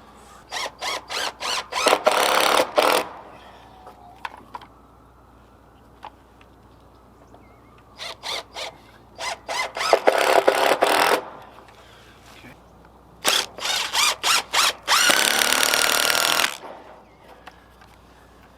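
Power drill driving screws into fence boards, three times: each run starts with a few short trigger spurts and then runs on for about a second.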